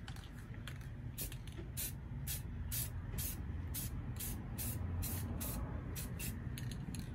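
Aerosol can of black Rust-Oleum primer spraying in short bursts, about two a second, as a first coverage coat goes onto the bare sanded engine bay, over a low steady rumble.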